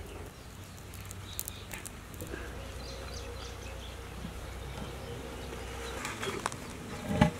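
Wood fire crackling faintly under a cooking pot, with a steady low background hum, scattered small clicks and pops, and a dull thump near the end.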